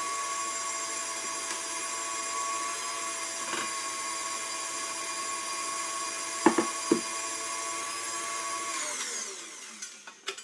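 KitchenAid stand mixer motor running steadily, its wire whisk beating cheesecake filling, with a constant whine. About two-thirds through there are two sharp knocks. Near the end the mixer is switched off and its whine falls in pitch as it winds down.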